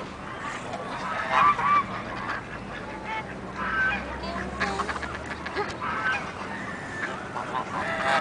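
A flock of domestic geese honking repeatedly, with short calls overlapping one another, the loudest about one and a half seconds in.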